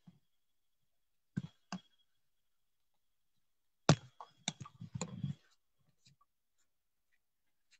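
A few short, sharp clicks and knocks: two single clicks about a second and a half in, then a quick cluster of clicks and small knocks about four seconds in, with silence between.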